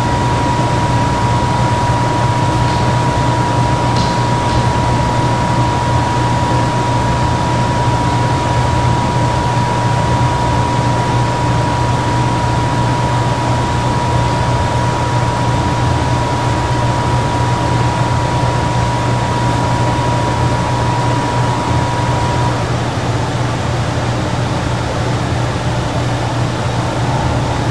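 Steady background noise: an even hiss with a low hum, and a thin steady whine that stops a few seconds before the end.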